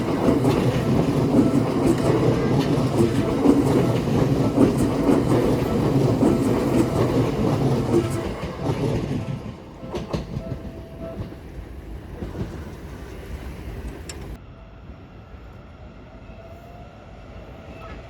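Electric commuter train passing close by, its wheels clattering over the rail joints; loud for about eight seconds, then fading away.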